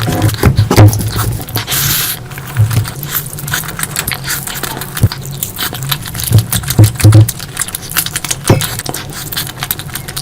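Close-miked eating sounds: wet chewing and mouth smacks, with irregular clicks and soft thumps throughout and a short hissing smear about two seconds in.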